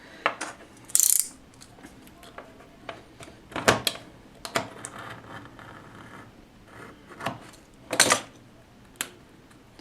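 Irregular clicks and taps of a small metal battery cell and tools being handled on a bench, with a brief scraping hiss about a second in and the loudest knocks about four and eight seconds in.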